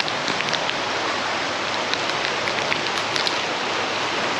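Shallow river water running steadily over rocks, with a few light ticks scattered through it.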